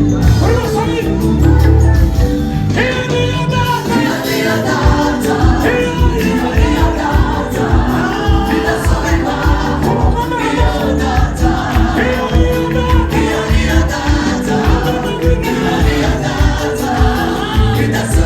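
Gospel choir singing over a steady beat.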